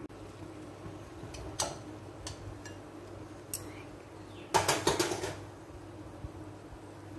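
A few light clicks, then about a second of loud clattering of dishes, over a steady low hum.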